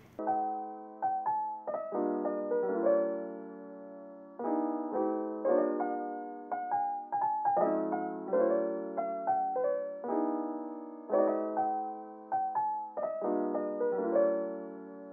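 Background piano music: a gentle melody over chords, each note struck and then fading.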